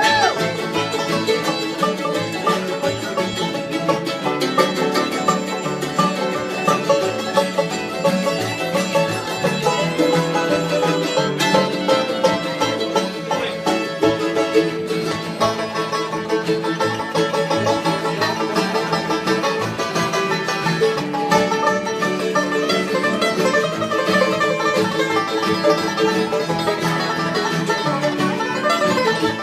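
Instrumental break in a country song: a band plays a fast, even rhythm with no singing.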